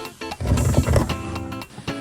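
Background music, likely acoustic guitar, with evenly pitched notes. A loud, low rumbling noise breaks in about half a second in and fades after under a second.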